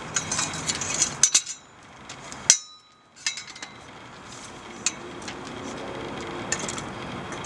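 Crucible tongs clinking and knocking against the crucible and furnace as they are handled, with one sharp click about two and a half seconds in.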